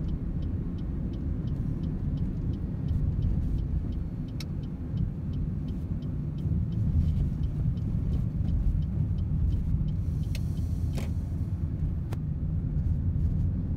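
Steady low road and engine rumble heard from inside a moving car, with the turn signal ticking about three times a second through a turn; the ticking stops about ten seconds in. A short hiss and a couple of single knocks come near the end.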